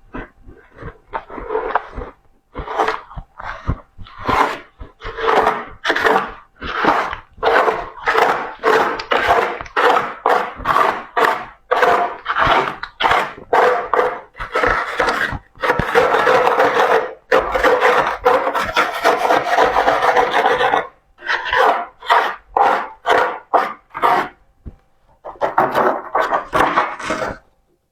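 Close-miked crunching of soft, freshly formed humidifier frost: rapid repeated crisp crunches with short pauses, running together into one continuous crunch for several seconds past the middle.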